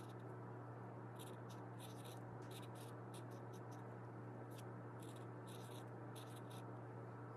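Washable felt-tip marker writing on a paper towel: short scratchy pen strokes in two quick runs with a brief pause between them, over a steady low hum.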